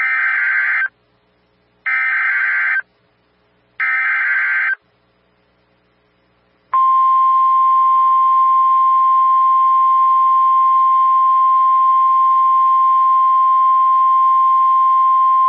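Emergency Alert System activation for a tornado warning: three roughly one-second bursts of the raspy digital SAME header data, a pause, then the NOAA Weather Radio warning tone, one steady single-pitch beep held for about nine seconds, signalling that a warning message follows.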